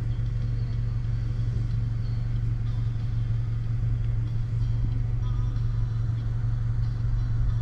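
Small pickup truck driving: steady engine and road rumble with a constant low hum.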